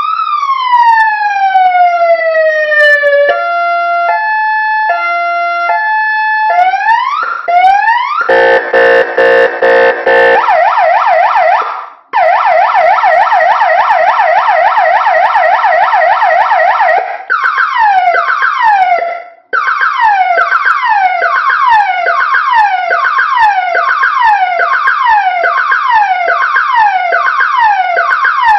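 A 100-watt electronic siren amplifier playing its ERP tones through a horn driver, stepping through a sequence: a slow falling wail, a two-note hi-lo, quick rising yelps, a stuttering low horn-like buzz, a very fast warble, then falling yelps about twice a second. It cuts off right at the end.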